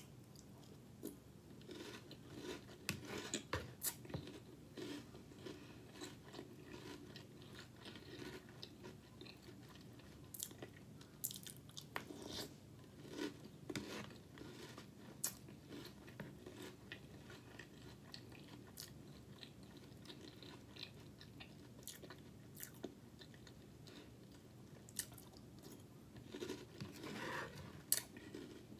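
Faint, close chewing and crunching of puffed cereal in milk, in scattered bursts, with small clicks of a metal spoon against the bowl.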